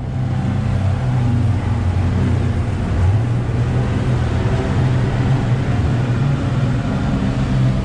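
Speedboat's three Yamaha 250 outboard motors running steadily at cruising speed, a low drone under the rush of the churning wake and wind.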